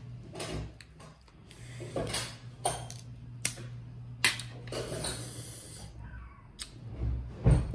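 Cooked crab shell being cracked and pulled apart by hand, with irregular wet crackles and clicks and some close-up chewing, a few sharper snaps among them. A steady low hum runs underneath, and there is a low thump near the end.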